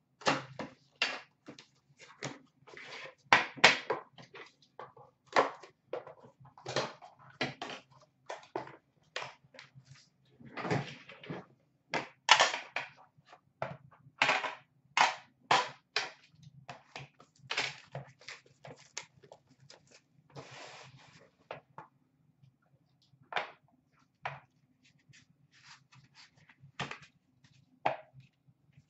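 A sealed hockey card box being opened by hand: packaging sliding, scraping, tapping and clicking in quick irregular handling sounds. They come thickly at first and grow sparse over the last several seconds.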